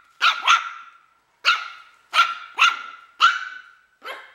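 Male F1B toy/micro mini goldendoodle puppy barking: a run of seven short, high-pitched barks.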